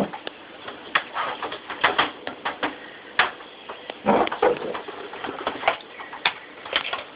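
Irregular clicks, knocks and rustles of objects being handled and moved about, in a small room.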